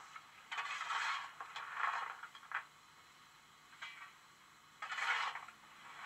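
DCC sound decoder in a Hornby Large Prairie model locomotive playing standing steam-engine sounds through its small speaker: three short scraping bursts with a couple of clicks between them.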